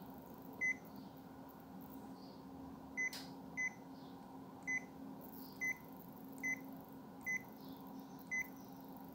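Ricoh MP 301 copier's touchscreen control panel giving a short confirmation beep at each key press, eight beeps at irregular intervals, over a steady low hum.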